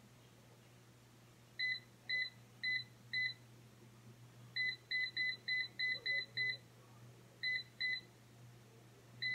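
Digital air fryer's touch-panel beeping: short electronic beeps, one per button press as the temperature is stepped down. Four spaced beeps come first, then a quicker run of about seven, then two more and a last one near the end.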